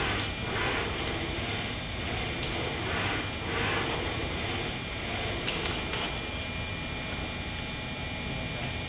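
Four-metre humanoid robot's leg actuators whirring in swells as it shifts its weight side to side while stepping sideways, over a steady mechanical hum. One sharp click comes about five and a half seconds in.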